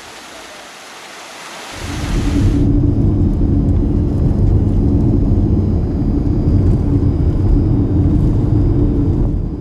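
A soft hiss, then about two seconds in a loud, steady low rumble sets in and holds.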